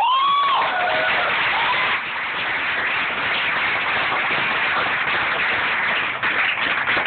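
A whooping shout right at the start, rising then falling in pitch, then an audience clapping and cheering steadily.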